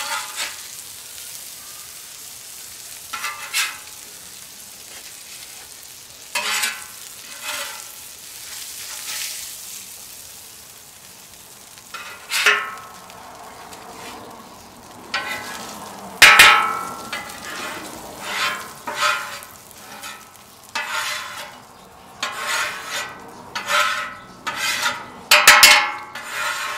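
Metal spatula scraping and scooping across a flat-top griddle's steel cooktop in short, irregular strokes with the odd clank. Under the strokes, grease keeps sizzling on the still-hot griddle after the burners were shut off.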